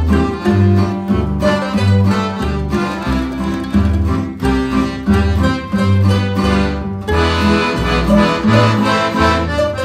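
Traditional instrumental folk music: a melody over a steady bass line that steps between low notes about twice a second.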